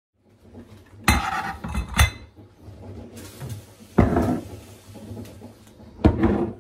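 Dishes and cutlery clinking and clattering as they are set down or handled, in four separate clatters: about a second in, two seconds in, four seconds in and near the end.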